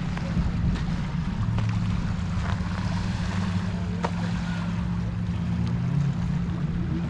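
A steady low mechanical hum with wind on the microphone.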